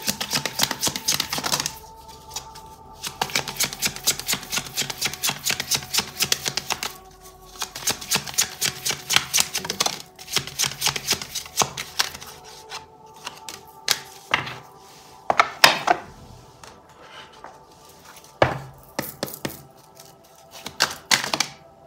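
A deck of tarot cards being shuffled by hand: quick runs of card-against-card flicking in several bursts, then a few single snaps as cards drop onto a wooden table. Soft background music underneath.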